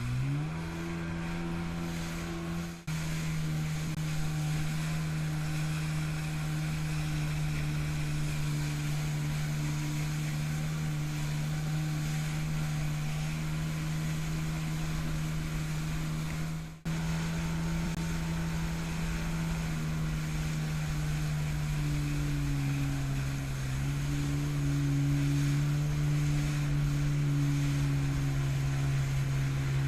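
Jet ski engine running at a steady cruising speed, its note rising in the first second and then holding, with water spray and wind on the microphone. The sound cuts out very briefly twice.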